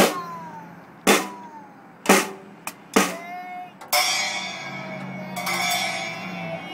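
Toddler bashing a First Act Discovery children's drum kit: four single hits about a second apart, then cymbal crashes from about four seconds in that ring on to the end.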